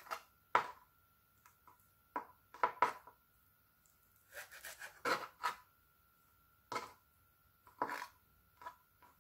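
Chef's knife cutting and tapping on a plastic cutting board as the suckers are trimmed off squid tentacles: irregular single knocks with a quicker run of cuts about halfway through.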